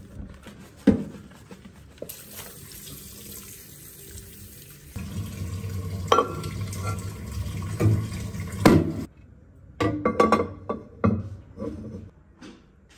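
Water running from a tap, growing louder and fuller about five seconds in, then cutting off about nine seconds in, followed by several knocks and clatters.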